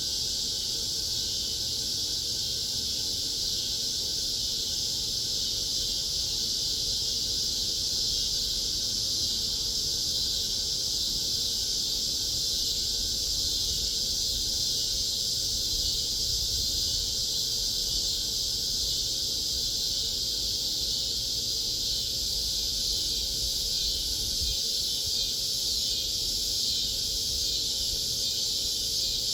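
Cicadas droning in a steady, unbroken chorus.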